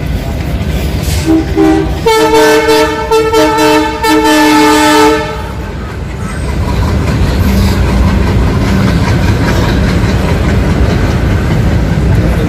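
Indian Railways locomotive horn: a short toot, then three longer blasts with brief breaks. It is followed by the steady rumble and wheel clatter of the locomotive running past close by.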